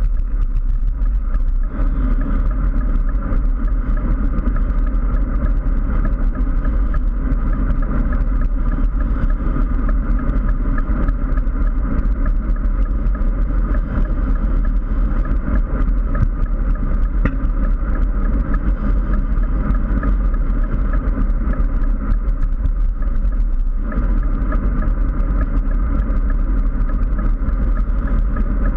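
Steady wind and road rumble on a GoPro mounted on a road bike riding at speed along a highway.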